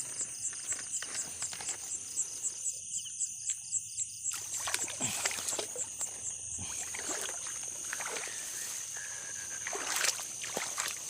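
Crickets chirping in a fast, even pulse. From about four seconds in, irregular splashing and rustling in shallow rice-paddy water joins them.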